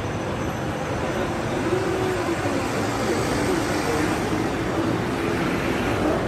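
Steady street traffic noise: vehicles driving past on the road, with a continuous rumble and no sudden bangs.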